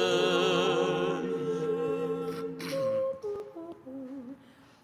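Unaccompanied Orthodox liturgical singing: voices hold a long final chord on 'ages' with a slow waver, which dies away about three seconds in. A few short, soft hummed notes at different pitches follow, trailing off to near quiet.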